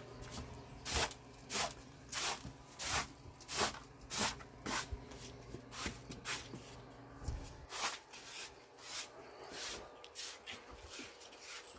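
Footsteps walking at an even pace, a little under two steps a second, louder at first and growing fainter in the second half.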